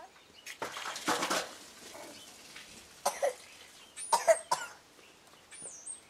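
A few short, sharp bursts of noise, the loudest about four seconds in, with a small bird chirping high, looping notes twice in the second half.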